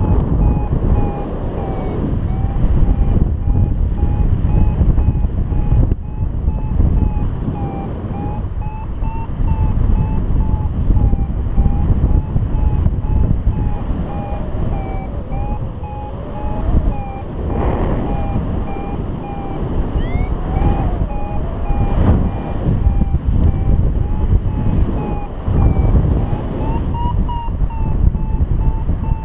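Paragliding variometer beeping, about two short beeps a second, its pitch rising a little near the end: the tone of the glider climbing in lift. Strong wind noise buffets the microphone throughout.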